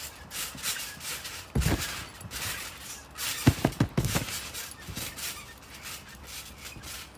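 Children bouncing on a garden trampoline: dull thumps as feet land on the mat, the loudest a quick run of three around the middle, with short scuffing noises in between.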